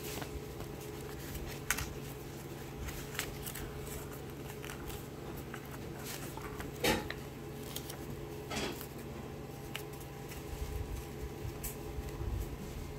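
Paper being handled and pressed down on a table: faint rustling and a few light taps, the loudest about seven seconds in, over a steady low hum.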